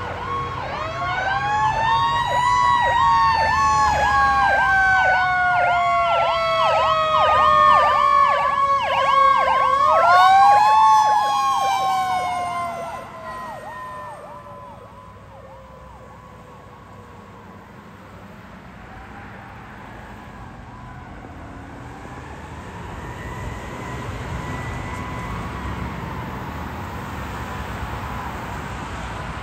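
Fire engine sirens passing: an electronic siren yelping rapidly, about three cycles a second, over a mechanical siren that winds up, coasts slowly down, and winds up again about ten seconds in. The sound drops off sharply about thirteen seconds in as the engine moves away, leaving a faint siren near the end.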